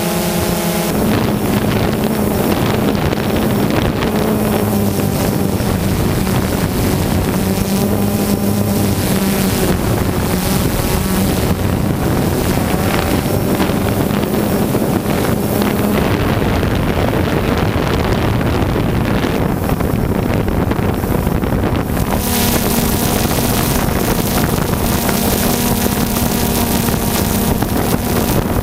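Multirotor drone's motors and propellers whirring steadily, recorded by the camera on board, with wind rushing over the microphone. The motor tone changes about a second in and again about 22 seconds in.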